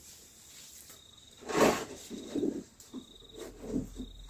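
Potatoes being handled in a plastic basin: one loud clatter about a second and a half in, then softer knocks and rubbing. A cricket trills faintly in short spells behind it.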